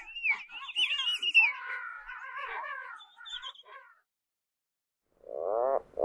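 A flock of gulls calling: many overlapping high, squealing calls that glide up and down for about four seconds. After a brief silence a single louder, lower call starts near the end.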